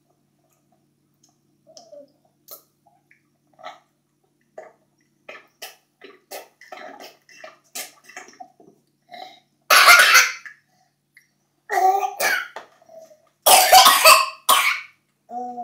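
Toddler drinking from a sippy cup with small sips and clicks, then coughing loudly in three bouts near the end.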